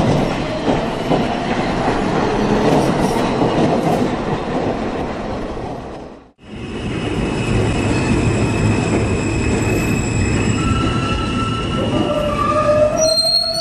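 Subway train running on the rails, with steady wheel-on-rail rumble and squeal, briefly cut off about six seconds in. Near the end a rising whine from the electric traction motors comes in.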